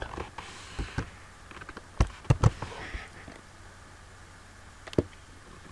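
Scattered sharp clicks from a computer keyboard and mouse while editing code. The loudest are a quick cluster of three about two seconds in and a single click about five seconds in, with fainter taps between.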